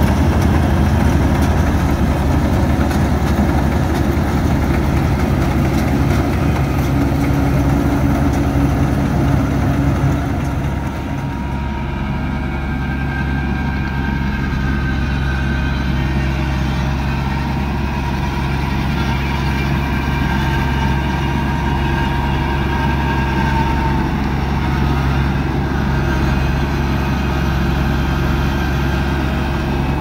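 Kubota DC-35 combine harvester's diesel engine running steadily under load, with its mechanical clatter and hiss. About a third of the way in the hiss drops away and a steadier, slightly quieter drone carries on.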